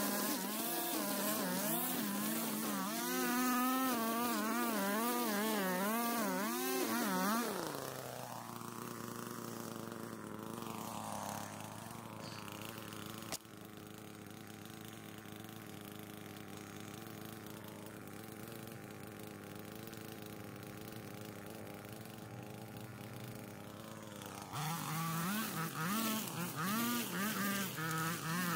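Gas string trimmer engine revving up and down as it cuts through tall grass. About seven seconds in it drops to a lower, steady idle, then revs up and down again near the end.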